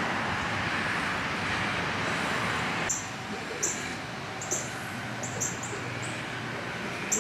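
A steady rushing noise, then from about three seconds in a small bird chirping repeatedly in short, high notes over a low, steady hum.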